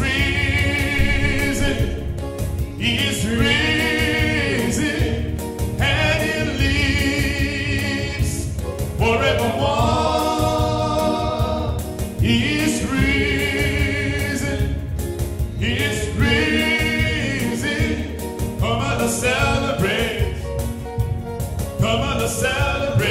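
A man singing a gospel song into a microphone over an instrumental backing, in sung phrases of a few seconds with vibrato on the held notes.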